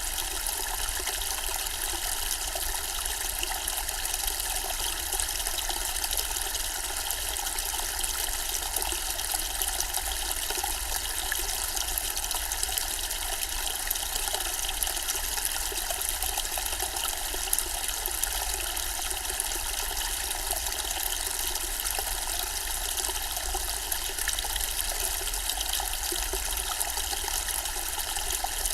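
Zen-style water fountain with water trickling and splashing steadily, without a break.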